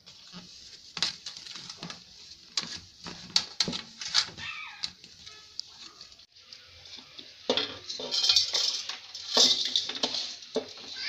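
Metal kitchen utensils clattering and scraping against a pot or pan in irregular strokes, busiest and loudest in the second half.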